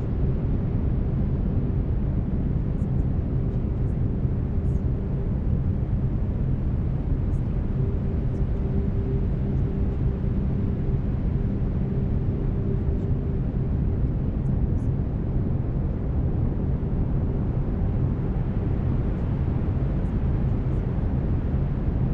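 Steady brown noise, a deep even rumbling hiss with no change over time, with faint steady low tones from binaural beats beneath it.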